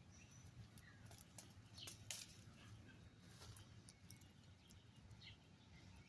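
Faint chirps of small birds with a few light clicks, over a quiet low background noise.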